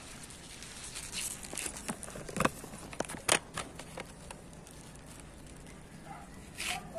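Rustling and crackling of large taro (gabi) leaves being handled close to the microphone, a run of short sharp crackles with two loud cracks about two and a half and three and a half seconds in, and one more rustle near the end.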